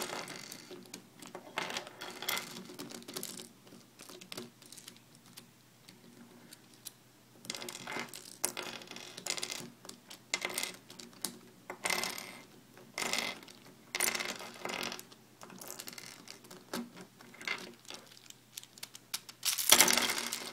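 Plastic pieces of a 4x4x6 twisty puzzle cube clicking and clattering as they are pulled out of the partly disassembled cube and set down, in irregular clusters of small clicks with short pauses between them.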